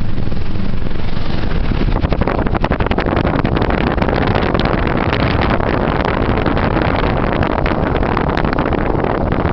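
A moving car's road and engine noise, with wind rushing in at the open side window and buffeting the microphone. About two seconds in it turns rougher and crackly.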